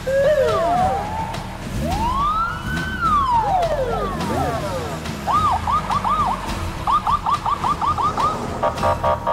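Police car siren: a rising wail, then one long slow sweep up and down, then two runs of fast yelping sweeps, ending in a quick choppy on-off pattern.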